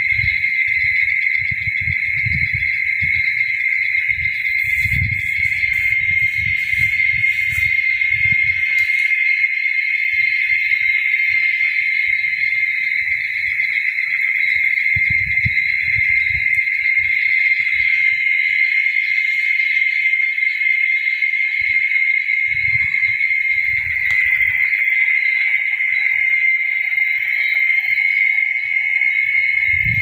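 Cicadas droning in a loud, unbroken high chorus. Low rumbles come and go underneath in the first several seconds and twice more later.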